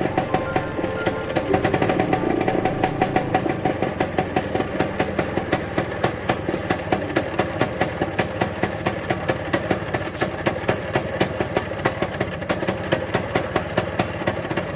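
Small engine running at idle, with an even beat of about four to five pulses a second.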